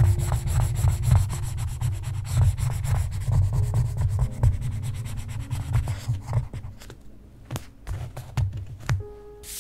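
A wooden spatula rubbed quickly back and forth over a paper sticker on a notebook page, burnishing it flat, making a dense scratchy rubbing. About six seconds in, the rubbing thins out into occasional strokes and light taps as fingertips press the sticker down.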